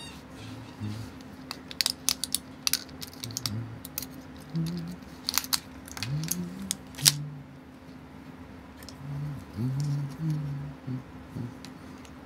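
Crinkling and sharp clicks of a foil-and-plastic blister card of button-cell watch batteries being handled and pressed open to free a cell, the clicks bunched between about two and seven seconds in. Soft low hums come and go throughout.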